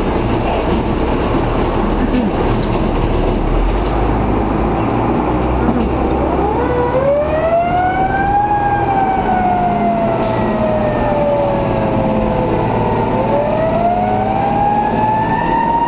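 Fire rescue squad truck's engine running as it pulls out onto the road. About six seconds in, its siren winds up, falls slowly in pitch for several seconds, then winds up again.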